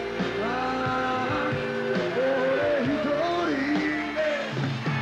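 Live rock band playing, with electric guitar under a long lead melody that holds its notes and bends and wavers in pitch.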